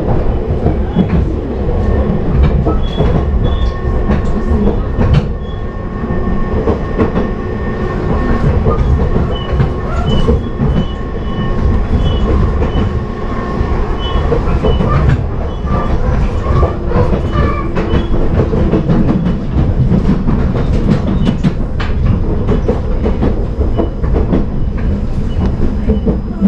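Passenger train running along the track, heard from inside the carriage: a steady rumble with repeated clicks from the rails.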